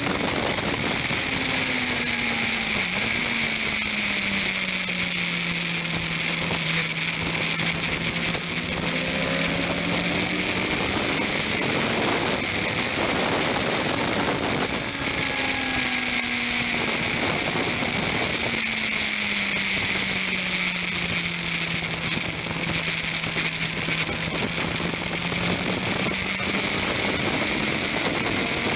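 Onboard sound of a Yamaha R1 sport motorcycle engine on a wet track: the engine note falls slowly as the rider rolls off, runs steady for a few seconds, then rises again as the throttle opens, twice over. A constant hiss of wind and water spray runs underneath.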